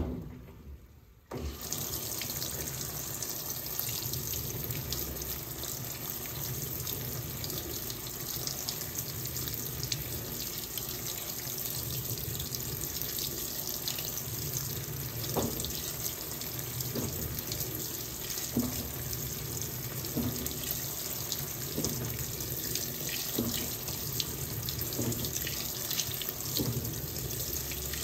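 Fisher & Paykel WL8060P1 washing machine filling with water: a click, then water starts rushing into the tub about a second and a half in and runs on steadily. Faint soft knocks come every second or two in the second half.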